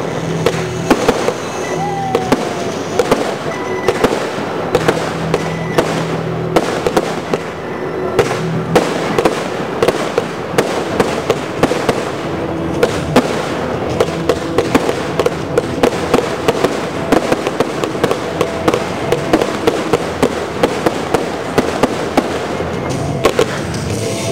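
A fireworks display: shells bursting in a rapid, irregular series of sharp bangs and crackles, with music playing underneath.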